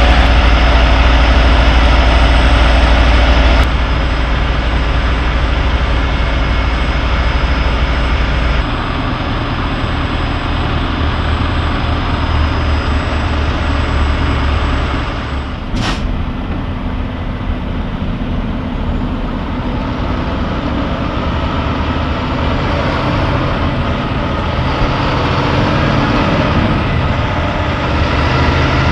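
Kenworth heavy-haul truck's diesel engine idling and running, a steady low rumble whose sound changes abruptly a few times. A single sharp click about halfway through.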